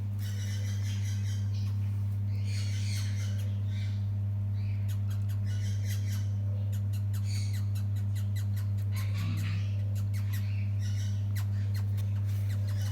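Finch chicks giving harsh begging squawks in repeated bursts while being hand-fed, with scattered sharp clicks, over a steady low hum.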